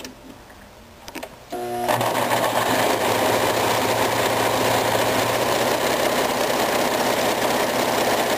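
Brother LS-2000 sewing machine stitching a narrow zigzag satin stitch along the side of a buttonhole. A few light clicks come first, then the machine starts about a second and a half in and runs steadily at speed.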